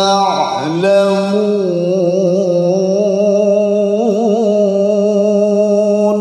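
A man reciting the Quran in the melodic tilawah style through a microphone. His voice dips in the first second, then holds one long note with ornamental wavering, which stops right at the end.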